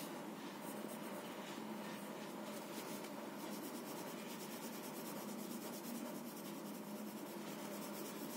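Soft graphite sketch pencil scratching on drawing paper in many short, quick strokes, shading a small drawing.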